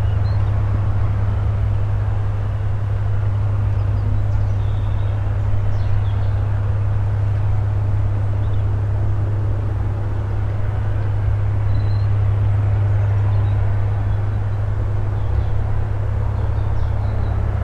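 GippsAero GA8-TC320 Airvan's turbocharged six-cylinder Lycoming piston engine and propeller running steadily at low power while the aircraft taxis.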